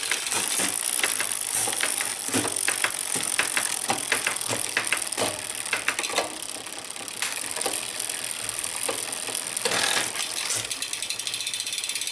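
Bicycle drivetrain running in a work stand: an 11-speed chain turning over a Shimano 11-40 cassette through an Ultegra RX800 clutch rear derailleur, with a steady rattle and frequent irregular clicks.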